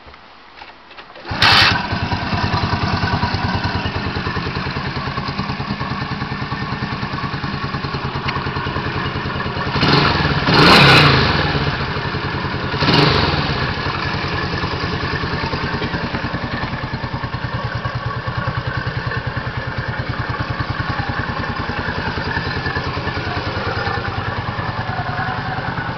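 125cc air-cooled single-cylinder motorcycle engine starting up about a second and a half in, then idling with an even, fast beat. It is revved up briefly twice, around the middle.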